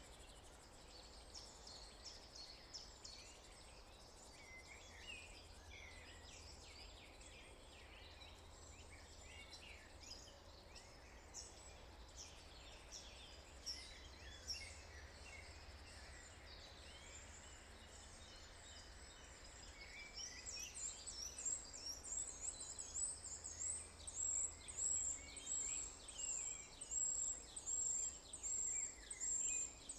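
Morning chorus of songbirds: many birds chirping and trilling. About twenty seconds in, a louder, high, thin call starts repeating roughly once a second.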